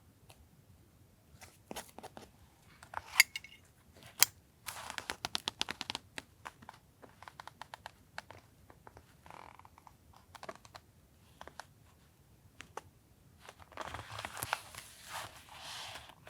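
Paper crafting sounds while collaging a journal: scattered taps and clicks of paper pieces being handled, a run of quick crisp ticks about five seconds in, and a longer stretch of paper rustling near the end.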